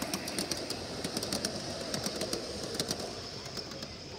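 Model train coaches rolling past close by: a steady rumble of wheels on the track with many quick, irregular clicks.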